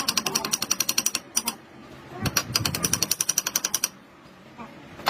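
A power tool hammering rapidly on metal in two bursts of about a second and a half each, with a short pause between them.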